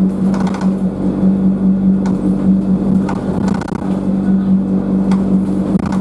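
Alexander Dennis Enviro200 single-deck bus's diesel drivetrain running under way: a loud, steady drone that briefly drops away a little past the middle, with scattered rattles and clicks.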